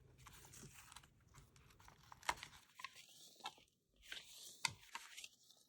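Faint paper rustling with scattered light clicks and taps as the pages of a handmade paper journal are handled and turned.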